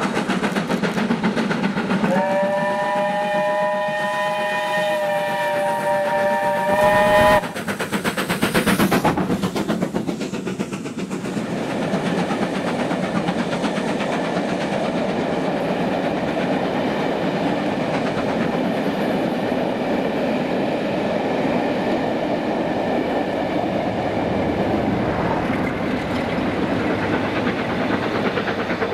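Steam locomotive 70000 Britannia, a BR Standard Class 7 Pacific, sounds its whistle about two seconds in and holds it for about five seconds. The locomotive and its train of coaches then run past, wheels rolling on the rails in a steady rush.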